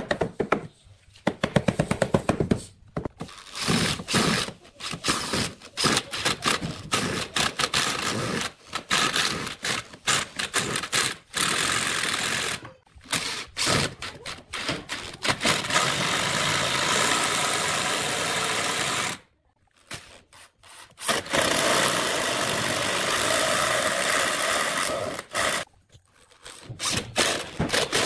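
Electric drill driving long screws into a pine frame, its motor running in stop-start runs of a few seconds, the longest in the second half. A burst of quick knocks near the start.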